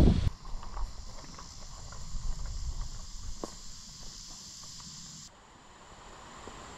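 Summer insects such as crickets or katydids chirring as a steady high-pitched drone, with a few faint ticks. About five seconds in, the sound changes abruptly to a thinner, single high tone. A brief rumble of wind on the microphone cuts off right at the start.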